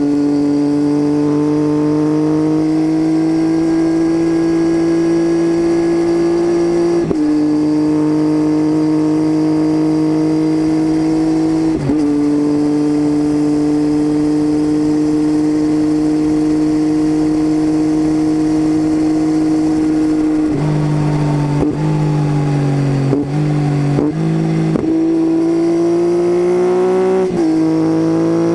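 Triumph Tiger 800's three-cylinder engine heard from on board through a baffle-less titanium Leo Vince exhaust, droning steadily under way. The engine note climbs slowly, with brief breaks in the note about 7 and 12 seconds in, and a run of pitch changes between about 20 and 27 seconds in, like gear changes.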